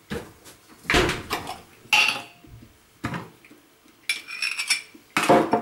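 Dishes and kitchenware being handled: about six sharp clinks and clatters roughly a second apart, a few of them ringing briefly.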